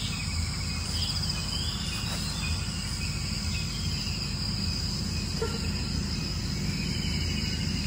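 Forest dawn ambience: insects trilling with a steady high buzz, and faint bird calls over it.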